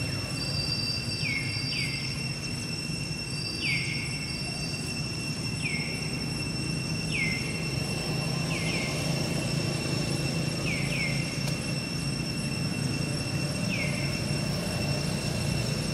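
Outdoor ambience: a steady high-pitched drone with a short falling chirp repeated every one to two seconds, over a steady low rumble.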